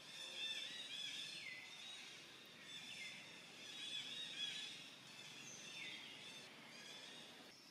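Faint outdoor ambience with repeated high-pitched calls, several of them sliding downward at the end.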